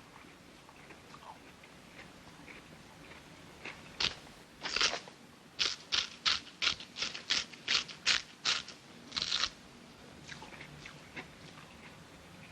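Crunching bites and chewing of a raw radish. After a few scattered crunches, a quick run of about a dozen crisp crunches comes at three or four a second, then trails off into faint chewing.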